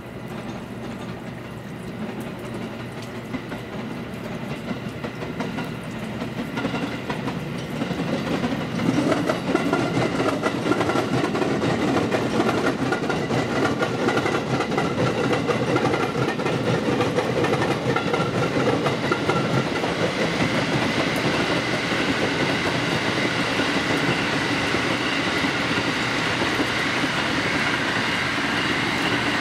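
Electric trains running past on the tracks, including a JR West 281 series Haruka limited express: a steady rolling rumble that builds gradually and grows much louder about nine seconds in, then holds.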